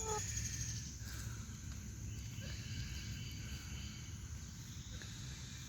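Faint, steady outdoor chorus of chirping insects over a low rumble.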